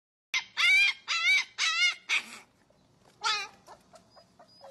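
Husky puppy crying in high, wavering yelps: four in quick succession, one more about a second later, then fainter short yips.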